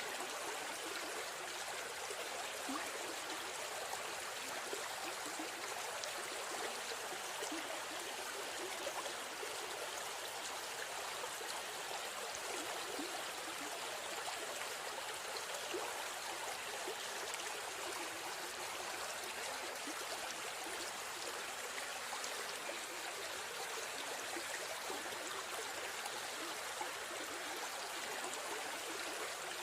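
River stream flowing steadily, a continuous rush of water with faint trickling and gurgling.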